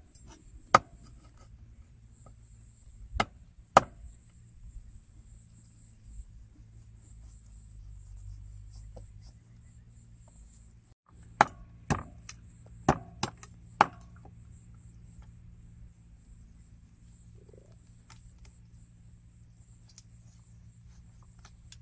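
Knives chopping quail on thick round wooden chopping boards: sharp wooden knocks, a few single ones in the first four seconds, then a quick run of about six chops between 11 and 14 seconds in.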